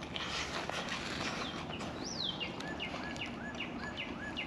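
A songbird singing: one falling whistle, then about five quick repeated two-part notes. The outdoor background hiss runs underneath.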